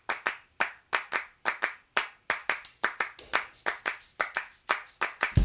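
Intro music built on a steady rhythm of hand claps, about three to four a second. A little over two seconds in, sustained high tones join the claps.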